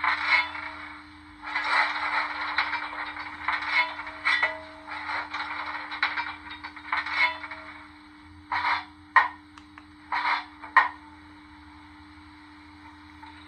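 Digital steam-locomotive sound of a Stanier 8F, played through a small speaker in a model locomotive's tender. Exhaust chuffs come in uneven beats, then a few separate chuffs with two sharp clanks about nine and eleven seconds in, after which it settles to a quiet steady background. A steady low hum sits underneath.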